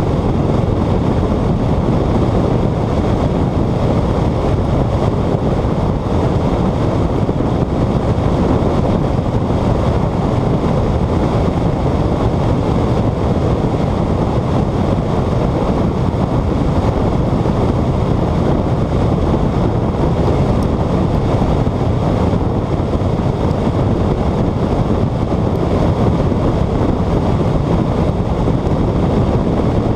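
Steady rush of wind across a hood-mounted camera's microphone on a car driving at high speed, with the car's running and tyre noise blended in.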